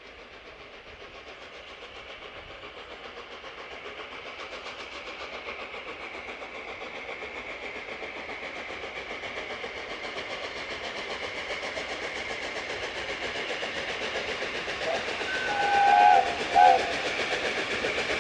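Three-cylinder LNER Class A1 Pacific steam locomotive No. 60163 Tornado approaching, its rapid exhaust beats growing steadily louder. Near the end it sounds its whistle in two short blasts, the first longer than the second.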